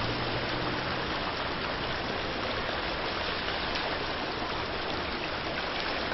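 Muddy, silt-laden water welling up through a street storm-drain grate, churning and splashing in a steady rush. This is groundwater forced up by soil liquefaction from earthquake shaking.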